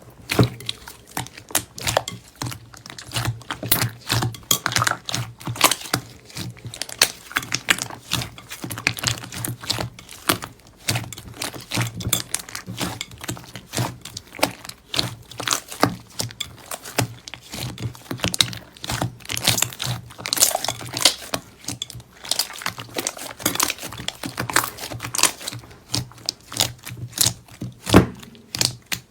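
Slime being squeezed, poked and stretched by hand, giving a dense, irregular run of crackles and clicks.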